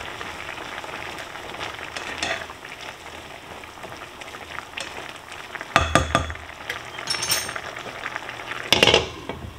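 Liquid pasta mixture sizzling and bubbling in a nonstick skillet as it heats toward a boil, stirred and scraped with a plastic spatula. A few sharp knocks of the spatula against the pan stand out, the loudest about six seconds in and near the end.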